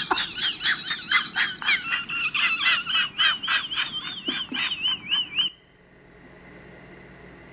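Husky howling in a rapid, high-pitched, wavering warble of about four pulses a second, which cuts off abruptly about five and a half seconds in, leaving only a faint steady hum.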